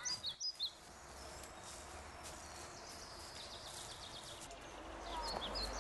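Faint forest ambience with short bird chirps near the start and again near the end.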